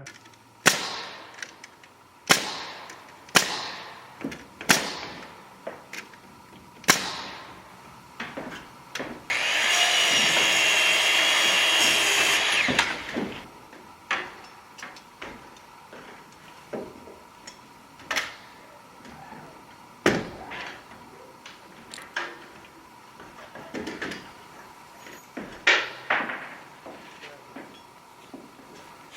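Wall sheathing being fastened during construction: a run of sharp knocks, roughly one a second at first and then more scattered, each ringing briefly. About nine seconds in, a power tool runs steadily for about three seconds.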